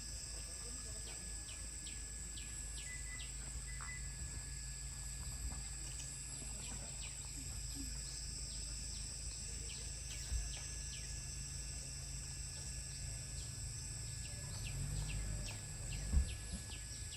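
Tropical rainforest ambience: insects droning steadily at a high pitch, with groups of short falling chirps over a low rumble, and a couple of soft thumps.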